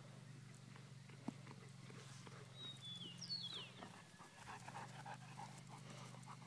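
Dogs panting faintly as they run, with a few high falling chirps about halfway through.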